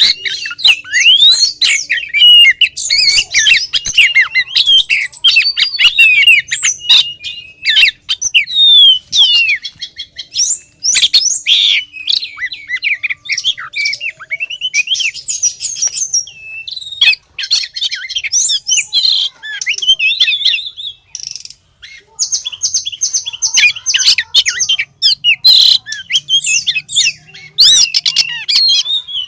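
Female oriental magpie-robin singing a fast, near-continuous, varied song of sliding whistles, chirps and harsh rasping notes, with a short pause a little past two-thirds of the way through. It is a female calling for a male.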